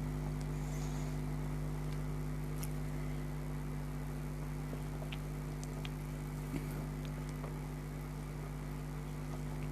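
Steady low machine hum, unchanging throughout, with a few faint scattered clicks over it.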